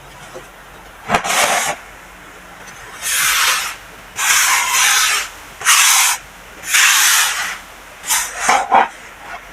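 Baking soda powder being worked by hand: six soft, gritty rubbing strokes, each about half a second to a second long, with short pauses between them.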